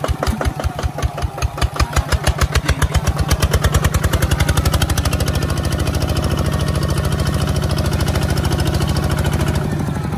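Kubota ZT155 single-cylinder diesel engine on a walking tractor, working under load while pulling a disc plough through soil. Its separate firing beats quicken as it revs up about three to four seconds in, then it runs steadily at the higher speed, easing slightly near the end.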